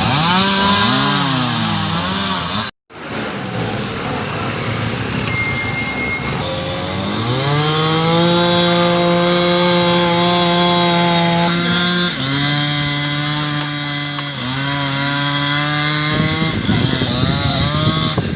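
Two-stroke chainsaw revving up and running at high speed, then settling to a lower pitch about twelve seconds in as it works under load cutting a fallen tree. The sound cuts out for a moment about three seconds in.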